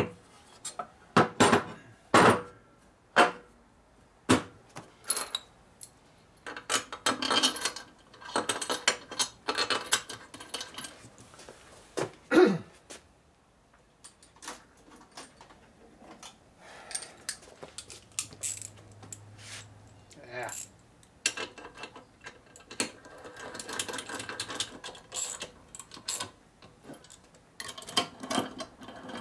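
Metal engine and transmission cases being handled and set down on a workbench: a string of sharp knocks and clunks, with metal parts rattling and scraping in between. Near the end, a hand tool works a bolt into the case.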